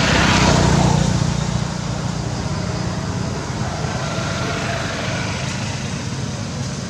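Steady outdoor rumble and hiss, louder for the first second or so and then even.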